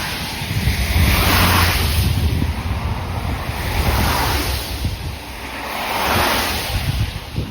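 Road traffic passing, with several rising and falling whooshes of vehicles going by and wind rumbling on the microphone.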